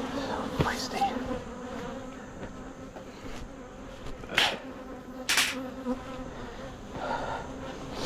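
Honeybees buzzing around an open hive, a steady hum. Two short hissing bursts come about four and five seconds in.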